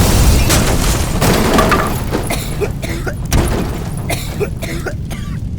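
Fireworks going off: a loud blast's rumble fading over several seconds, with scattered crackles and pops on top.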